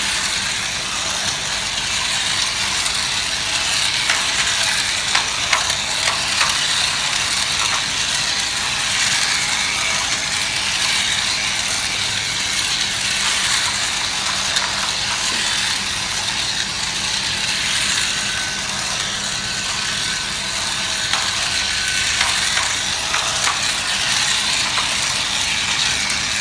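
Battery-powered toy steam locomotive running on a plastic track, pulling its wagons: a steady whir of the small motor and plastic gears, with light scattered clicking.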